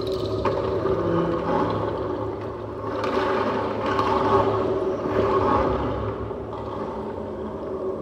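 Double bass drones layered through a loop pedal: sustained low tones held steady under a hissing wash that swells up twice in the middle.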